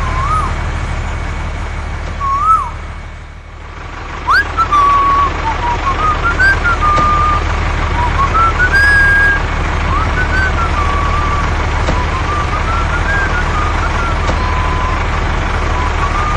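A whistled tune, one clear tone sliding up and down in short phrases, over a steady low hum.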